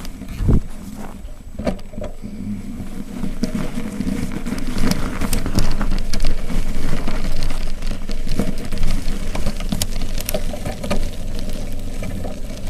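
Riding noise of a bicycle on a wet, slushy road: tyre hiss and spray, sharp rattling clicks and knocks, and a low wind rumble on the camera's microphone that grows louder over the first several seconds.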